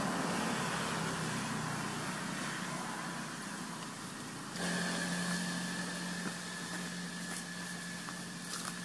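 A steady engine hum with a faint higher whine, its pitch and level changing abruptly about halfway through, and a few faint clicks near the end.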